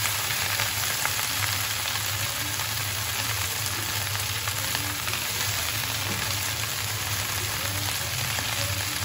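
Oil sizzling in a steel pot under a fresh heap of red amaranth leaves, with garlic, onion and green chilli frying beneath: a steady hiss over a low steady hum.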